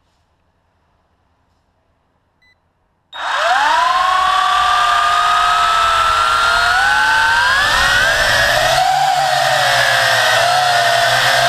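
After about three seconds of near silence, the WLtoys V262 quadcopter's motors and propellers start abruptly and run loudly, their whine climbing steadily in pitch as they spin up. Near the end the pitch wavers as the quadcopter lifts off.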